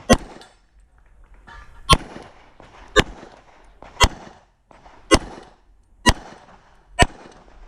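Seven handgun shots fired at a slow, even pace, about one a second, each with a short echo.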